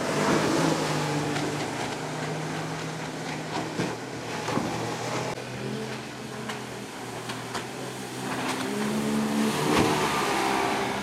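Outboard motors of small water-taxi speedboats running at speed as the boats pass close by: loud at the start, easing off, then growing louder again toward the end as another boat passes near. Water splashing and slapping against the hulls in short hits.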